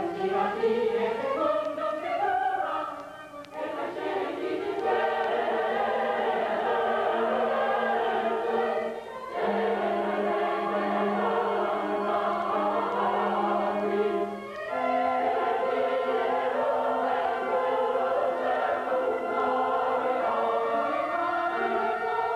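Choral music: a choir singing sustained chords in phrases, with short breaks between phrases and a held low note beneath.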